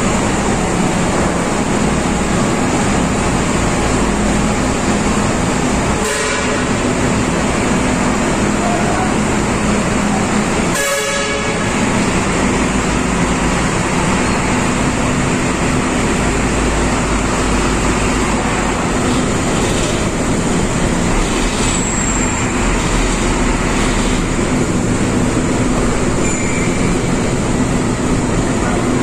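Heavy diesel truck engines running on the enclosed steel car deck of a ro-ro ferry as a heavily loaded truck drives slowly off the ship. The engine noise is loud and steady with a constant low hum, and it is broken by two brief sharp noises about six and eleven seconds in.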